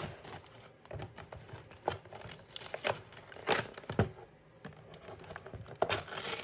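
Cardboard of a KFC chicken box being torn open by hand, with paper bags crinkling: irregular sharp crackles and rips, the loudest about three and a half to four seconds in.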